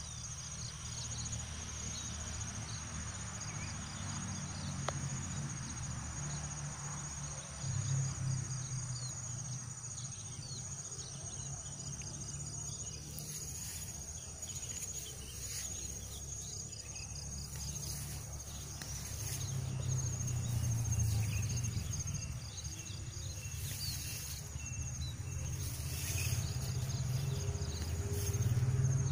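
Crickets chirping steadily, high-pitched, under a low rumble that swells and fades.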